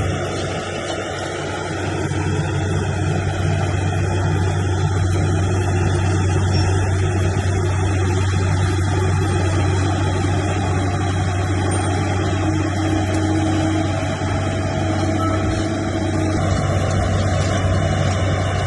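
Heavy diesel engine of a bulldozer running steadily, with a strong constant low drone.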